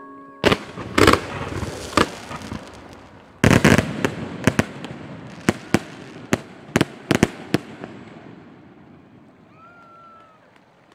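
Aerial fireworks shells bursting: a bang about half a second in, a cluster around one second, a big burst at about three and a half seconds, then a quick run of sharp reports up to about seven and a half seconds, after which the crackle dies away.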